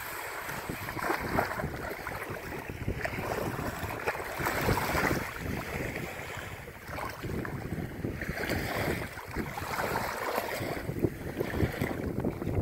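Wind buffeting the microphone over shallow surf washing in, the water noise swelling in surges every couple of seconds.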